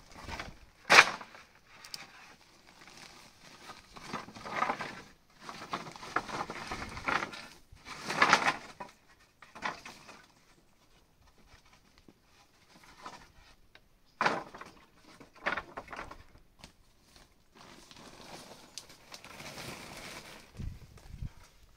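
Thin wooden boards knocking and clattering as they are handled and stacked, with scraping and rustling between a few sharp knocks. Near the end there is a softer rustling, like a plastic sack being handled.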